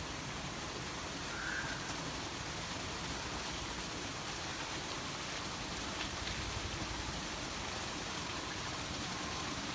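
Steady, even background hiss, with a faint short chirp about a second and a half in.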